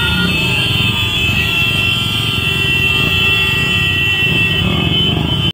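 Engines of a large group of motorcycles and scooters riding together, a steady mixed engine noise, with a steady high-pitched tone running above it.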